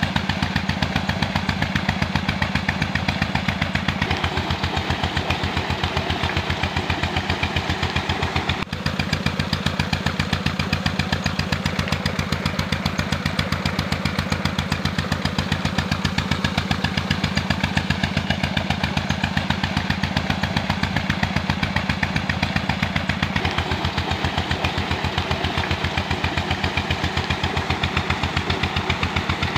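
Stationary engine driving a tube-well pump by a belt, running steadily with an even, rapid beat, over the rush of water gushing from the pump's outlet pipe.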